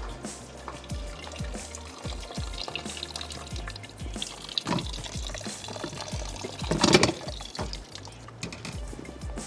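Water pouring and splashing over background music with a steady beat, and one loud clatter about seven seconds in.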